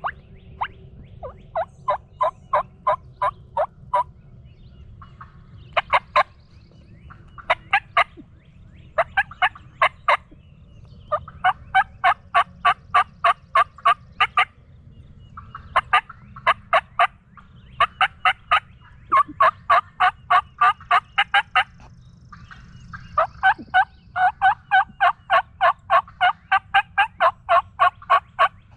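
Hen turkey yelping in fast runs of about six to fifteen notes each, with short pauses between runs.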